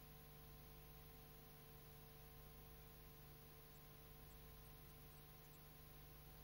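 Near silence: a faint steady hum with hiss, the recording's own background noise.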